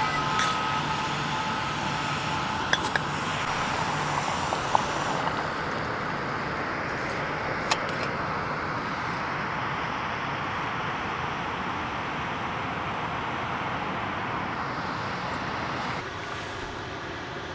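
Primus canister gas stove burner running with a steady rushing hiss, with a few light clicks of metal in the first half.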